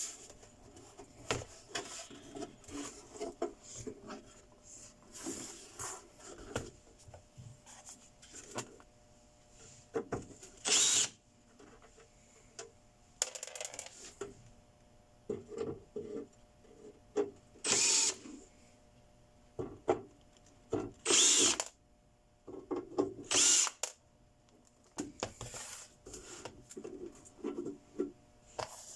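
Power drill run in four short bursts, each under a second long, among small clicks and knocks of parts being handled.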